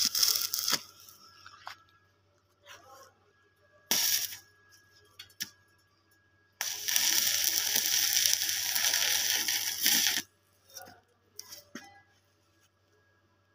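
Stick (arc) welding, the electrode's arc crackling and sizzling: a short burst at the start, a brief strike about four seconds in, then a steady run of some three and a half seconds in the middle, followed by a few small clicks.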